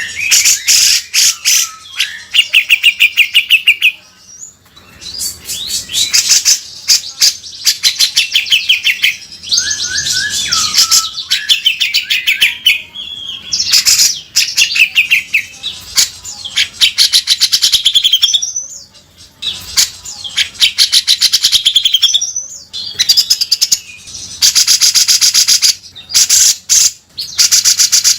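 Cucak jenggot (grey-cheeked bulbul) singing vigorously with harsh, rasping 'beset' chatter in repeated loud bursts, with a few short whistled notes between phrases.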